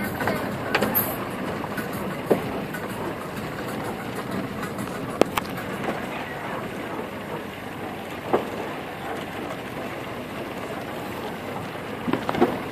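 Car driving slowly on a dirt road: a steady rumble of tyres on the rough surface, with scattered sharp knocks and clicks, several of them close together near the end.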